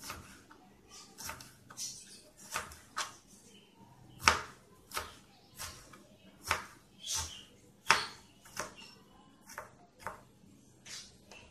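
Kitchen knife chopping green bell pepper on a plastic cutting board: uneven knife strikes, somewhat under two a second, with the loudest about four and eight seconds in.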